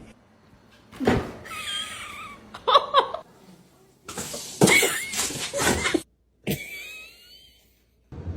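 A string of short, separately cut bits: pet animal calls that waver in pitch and a person laughing, broken by brief dead silences at the cuts.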